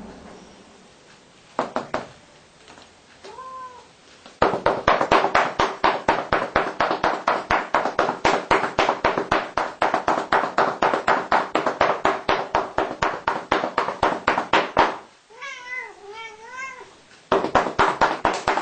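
Quick, even run of paddle slaps on a cat's rump for about ten seconds, then a long wavering meow from the cat and another short run of slaps near the end. A brief meow comes about three seconds in.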